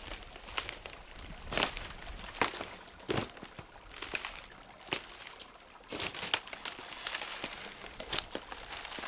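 Small half-frozen forest stream trickling and gurgling through gaps in its ice, a steady murmur broken by irregular plinks and splashes.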